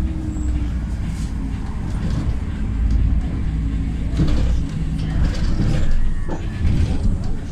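Inside the cabin of a LiAZ 5292.67 city bus under way: its compressed-natural-gas YaMZ-53624 engine runs steadily, with road noise and light rattles of the body.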